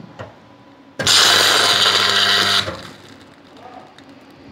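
Stud welding gun firing a 19 mm steel shear stud through metal deck sheet onto a steel beam. About a second in, the arc starts with a loud hissing buzz over a steady hum, runs for about a second and a half, and cuts off sharply as the weld is made.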